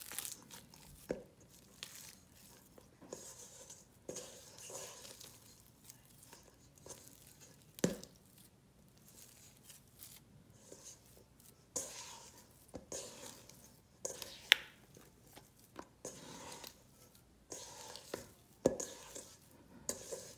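Wet, high-hydration sourdough dough being kneaded and folded by hand in a stainless steel bowl: irregular sticky tearing and squishing, with a few sharp clicks against the metal bowl.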